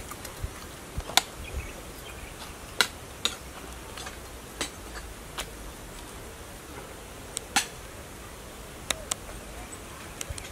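Quiet garden ambience: a low steady rumble with about a dozen short, sharp clicks and ticks at irregular intervals.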